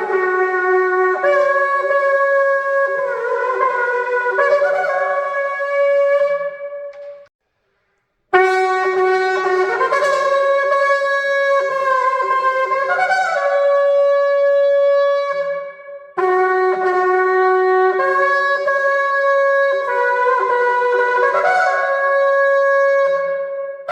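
Shofar blown in three long, loud blasts with short breaks between them, the tone jumping back and forth between a lower and a higher note within each blast.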